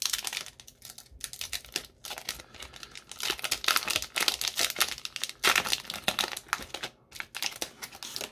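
Foil wrapper of a Pokémon XY Steam Siege booster pack being torn open and crinkled by hand: a dense run of crackling and tearing, loudest in the middle.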